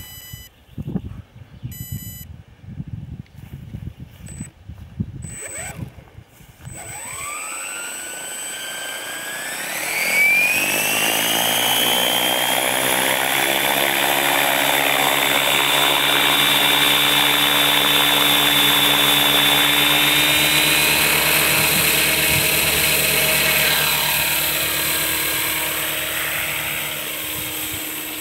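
LaHeli Sniper radio-controlled model helicopter spooling up: after a couple of short beeps, its motor and rotor whine rises steadily in pitch over several seconds, then holds steady at full rotor speed as the helicopter lifts off into a hover.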